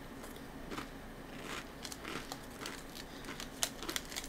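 Scattered short, sharp crackles from a crisp Japanese rice cracker (senbei) being bitten and crunched, mixed with crinkling of its plastic wrapper being handled.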